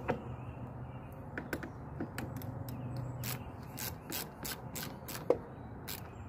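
Ratchet wrench clicking in short runs as a battery terminal clamp is tightened onto its post, about a dozen sharp ticks with a louder click near the end.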